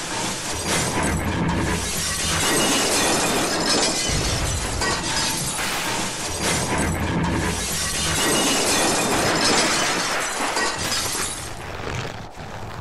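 Car-crash sound effects: a car rolling over and tumbling down a snowy slope, with glass shattering and breaking amid continuous crunching and low rumbling impacts, easing off near the end.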